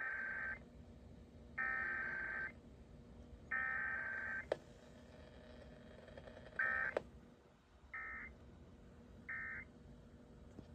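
Emergency Alert System weekly test: three buzzing digital data bursts of the SAME header, each just under a second and about a second apart, then three shorter end-of-message bursts, with no attention tone between them. A faint steady hum runs underneath, with a sharp click about halfway through.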